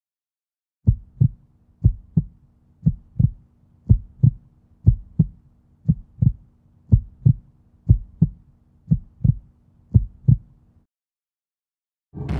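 Heartbeat sound effect: slow paired low thumps (lub-dub), about one beat a second, ten beats in all, over a faint low hum; they stop shortly before a loud wash of noise cuts in at the very end.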